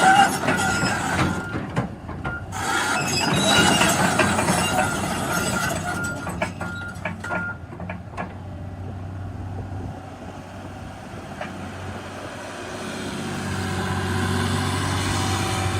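Volvo EC300DL excavator's D8H diesel engine running. In the first half metal squeals and clanks ring over it; after that it settles into a steadier hum that swells toward the end.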